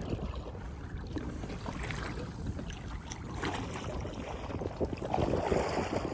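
Paddles splashing and water sloshing around an inflatable kayak being paddled, with wind rumbling on the microphone. The splashing grows louder about five seconds in.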